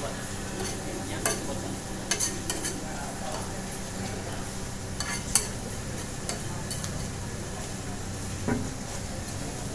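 Roti canai frying on a large flat griddle, a steady sizzle, with a metal spatula clicking and scraping against the griddle several times as the breads are turned and pressed.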